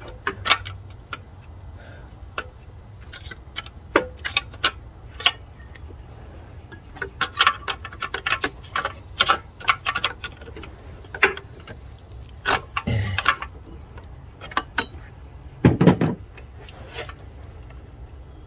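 Irregular metal clicks, taps and scrapes of a pry tool working a stuck, water-damaged transmission range sensor loose from its shaft, with two heavier knocks in the second half.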